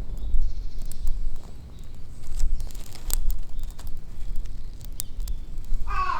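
A crow cawing near the end, a harsh call that comes again just after. Before it, a low rumble with scattered sharp clicks and rustles.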